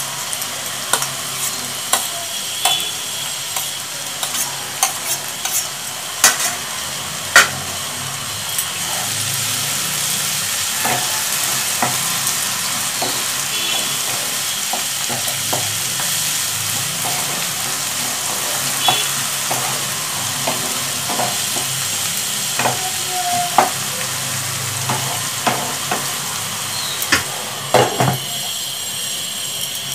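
Cauliflower and green capsicum sizzling as they stir-fry in a nonstick wok, with a spatula scraping and clicking against the pan all through. Near the end a glass lid clatters onto the pan.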